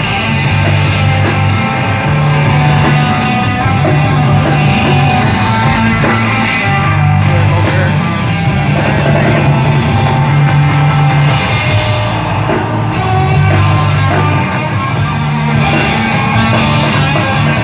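Live rock band playing loud through a stadium PA, electric guitar over a low, pulsing bass line of held notes, with a voice singing in the mix, heard from within the crowd.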